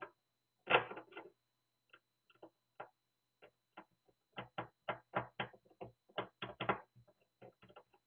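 Small machine screws being started by hand into the sheet-metal case of an NVR: a series of light metallic clicks and ticks, loudest just under a second in, and quickest and most regular between about four and seven seconds in.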